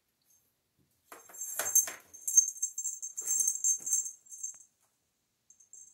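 A small bell inside a plastic cat toy ball jingling and rattling in irregular shakes as kittens bat it across a tile floor, with a few light knocks. It starts about a second in, stops near the end, and jingles briefly again at the very end.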